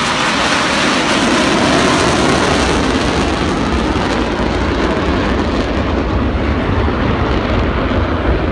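Four fighter jets flying over in diamond formation, their engines giving a loud, steady jet roar. In the second half the high hiss fades and the roar turns deeper and rumbling.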